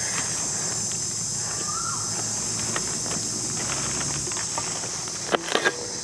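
Steady high-pitched drone of insects calling, with a brief call about two seconds in and a few sharp knocks near the end.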